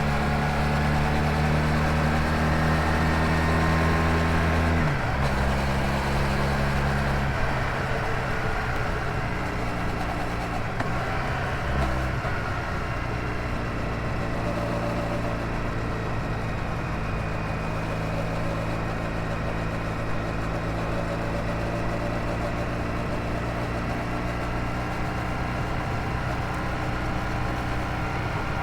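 Honda VF1000R's V4 engine running on the road. Its note changes about five seconds in and again at seven and a half, then holds steady.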